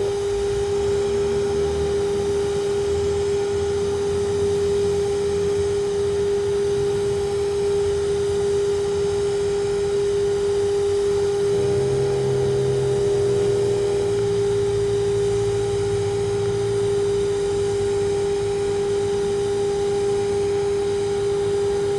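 TIG welding arc on a steel pipe joint, run at about 175 amps to flush out the pass, giving a steady humming tone with no breaks.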